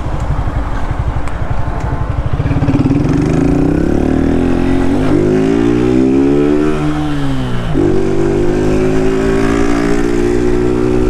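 Motorcycle engine heard from the rider's seat. It pulses low for the first few seconds, then the revs climb as the bike pulls away. They rise and fall twice and settle on a steady, higher note for the last few seconds.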